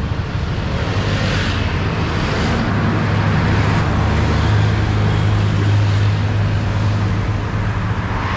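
Road traffic going past close by: cars and scooters passing with a steady rush of tyre noise. A truck's low engine hum builds and is loudest through the middle.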